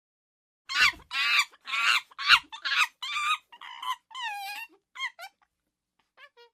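Monkey giving a rapid string of shrill, high-pitched calls, about a dozen over four seconds, then a few faint chirps near the end.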